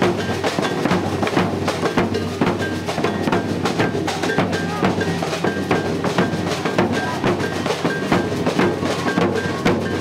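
Background music led by percussion: quick, evenly spaced drum and wood-block strikes over a steady bass, with a short high note repeating.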